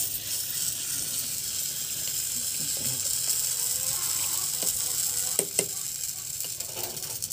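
A spoon mixing thick guava chutney and its tempering in a steel bowl, over a steady hiss, with a few light clicks of the spoon against the bowl about five and a half seconds in.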